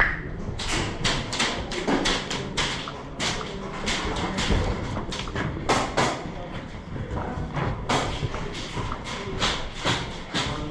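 A run of irregular sharp knocks and thuds, a few a second, over a low steady rumble.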